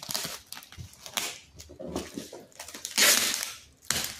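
Clear packing tape being pulled off its roll and pressed onto a box wrapped in a plastic bag, with the plastic crinkling. About three seconds in comes a louder rasp of tape lasting under a second.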